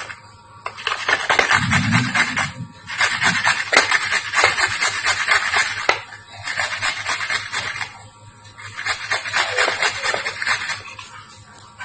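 Kencur (aromatic ginger) root being grated on a hand grater: rapid rasping strokes in four runs of about two seconds each, with short pauses between.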